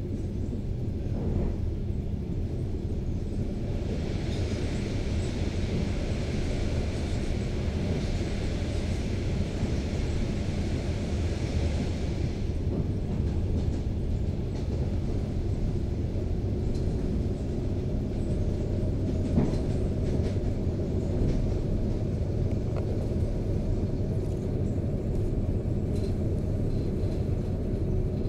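ED4MK electric multiple unit running along the line, heard from inside the carriage: a steady low rumble of the wheels and running gear. A hiss rises over it from about four seconds in and stops about twelve seconds in, and a single knock comes about nineteen seconds in.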